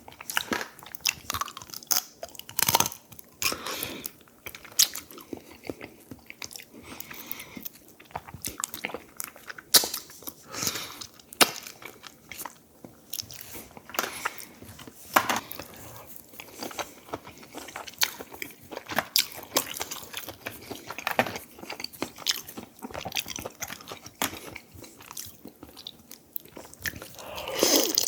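Close-miked chewing and biting of food, with irregular sharp wet clicks, smacks and crunches as meat is eaten, and a louder cluster near the end.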